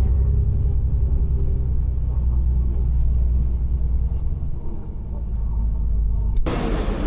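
Low, steady rumble of a moving road vehicle, with a constant engine hum underneath. The sound changes abruptly near the end.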